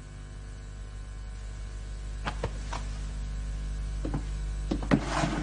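Steady low room hum, with a handful of light knocks and clicks in the second half, coming closer together near the end.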